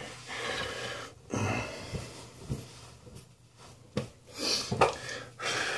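Short noisy breaths through the nose, mixed with a few small clicks and knocks from handling objects.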